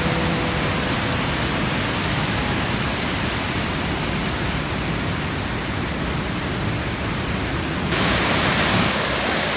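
Steady rush of whitewater pouring over Ohiopyle Falls and through the rapids below it on the Youghiogheny River. About eight seconds in it turns suddenly brighter and hissier.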